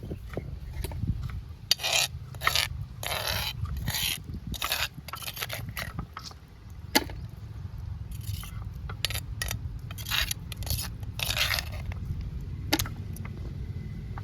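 Repeated irregular scraping strokes, a dozen or so short rasps, over a steady low rumble.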